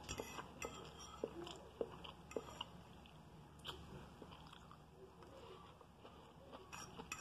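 A person chewing scrambled eggs close to the microphone, with small wet mouth clicks and smacks scattered through. The clicks are thickest in the first couple of seconds and near the end.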